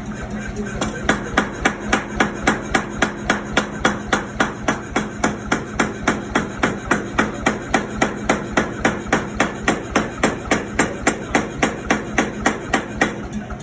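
Hammer blows on hot metal at the anvil during forging, in a steady rhythm of about three strikes a second. The hammering starts about a second in and stops shortly before the end.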